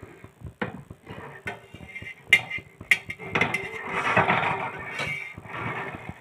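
Spatula scraping under the edge of a rice-flour cheela on an iron tawa, with a few sharp clicks of the blade knocking the griddle in the first few seconds and a longer stretch of scraping about halfway through.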